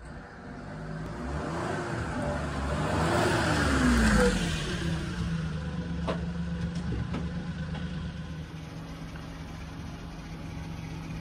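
Small kei-truck engine, the 1993 Mitsubishi Minicab's, driving up close past the microphone: it grows louder to a peak about four seconds in, its pitch falling as it goes by, then it settles into a steady idle.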